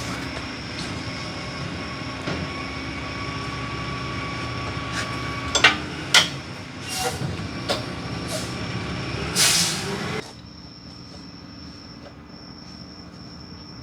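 Impact wrench hammering steadily on the large nut holding the lower control arm to the steering knuckle, with a few sharp metallic knocks in its second half. It stops abruptly about ten seconds in without breaking the nut loose.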